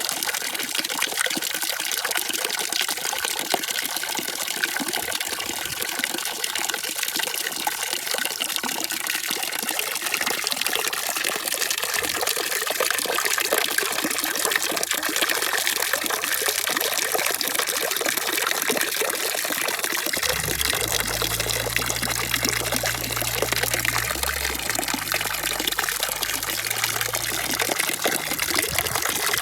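Steady rush of running water with a trickling, pouring texture, used as sleep noise. A low rumble joins underneath for several seconds near the end.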